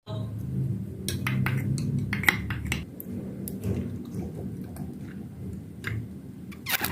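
Kitchen utensils clinking against dishes in a run of sharp clinks, thickest in the first three seconds, over a low steady hum.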